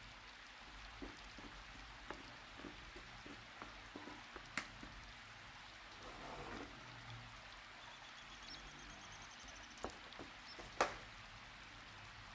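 Light clicks and taps of metal utensils and handling against a plastic serving plate over a steady low hiss, with two sharper knocks, one about a third of the way in and one near the end.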